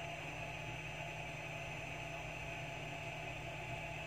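Steady low hum with a hiss, unchanging throughout: background machine noise with no separate knocks or clicks.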